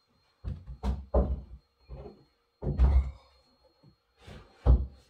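Irregular wooden knocks and thumps as a tall wooden shelf unit is shifted and bumped into position on top of a base cupboard, the loudest two near the middle and near the end.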